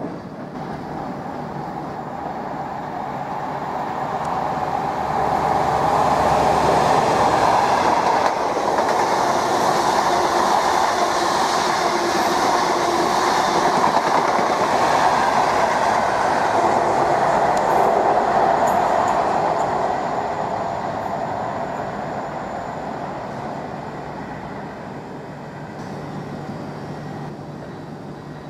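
Great Western Railway HST, a Class 43 diesel power-car train, passing through the station on the main line. It builds over the first six seconds, stays loud for about fifteen seconds, then fades away.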